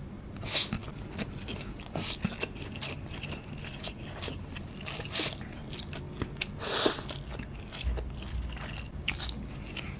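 Close-miked eating sounds of a person biting and chewing noodles eaten by hand: many small wet mouth clicks, with a few louder crunchy bites.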